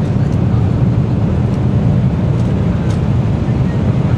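Steady airliner cabin noise on the descent to landing: a constant low rumble of engines and airflow, heard from inside the cabin at a window seat.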